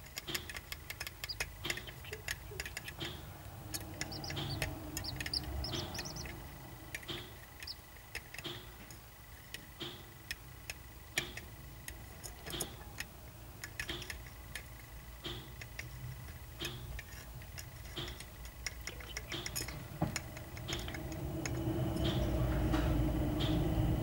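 Light, irregular ticking and tapping of corncrake chicks' beaks and plastic feeding tweezers against a plastic food dish. A low rumble grows louder near the end.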